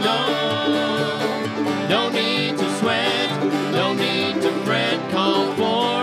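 Country-style background music with plucked strings.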